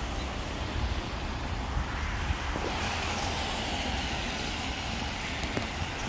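Steady low rumble of road traffic with wind buffeting the microphone.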